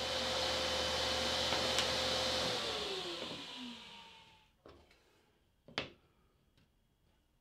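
Table saw running steadily, then switched off about two and a half seconds in, its whine falling as the blade coasts down and fades. After that come two light knocks as the ripped plywood strips are set down on the saw table.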